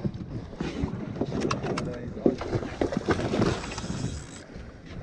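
Wind buffeting the microphone and water washing along a boat's hull at sea, with several sharp clicks and knocks in the middle.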